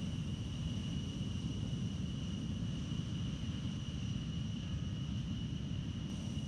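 A-10 Thunderbolt II jet engines running on the runway: a steady, even low rumble, with a thin, steady high-pitched whine above it.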